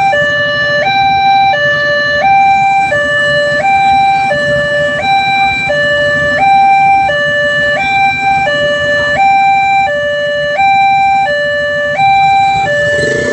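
Railway level-crossing warning siren sounding a loud two-tone hi-lo alarm, alternating a higher and a lower note, each held about two-thirds of a second, the signal that a train is approaching and the crossing is closed.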